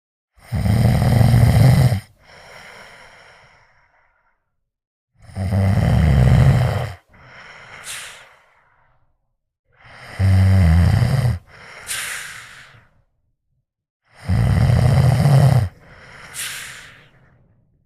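A sedated patient snoring: four loud snores about four seconds apart, each about a second and a half long and each followed by a quieter breath. The snoring comes from the uvula fluttering in the narrowed airway during sleep apnoea.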